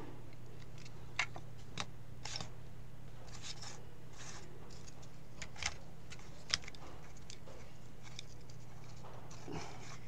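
Scattered small clicks and rustles of a laptop power adapter and its cable being handled and fitted during a repair, over a steady low hum.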